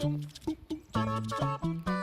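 Background music: a light melody of short, separate notes in a bouncy rhythm.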